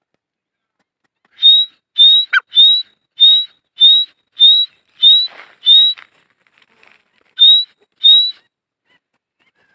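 Francolin (teetar) calling: a loud series of about ten short whistled notes, each rising slightly, repeated roughly every 0.6 s, with one longer pause shortly before the last two.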